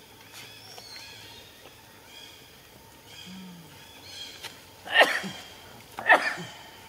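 Macaque calls: faint high chirps at first, then two loud, short shrill squeals about a second apart near the end.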